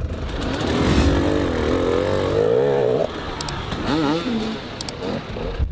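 Off-road dirt bike engines revving up and down unevenly as the bikes are ridden up over rocks. The sound changes abruptly about three seconds in, and a second short run of revving follows about a second later.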